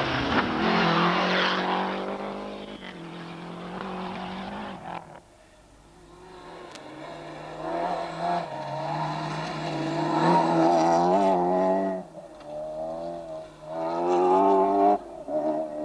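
Rally cars at full throttle on a gravel stage. First a Lancia Delta Integrale's four-cylinder turbo engine runs hard with a rush of noise as it crests a jump, cutting off about five seconds in. Then a Volkswagen Golf rally car's four-cylinder engine climbs and drops in pitch several times as it accelerates through the gears on gravel.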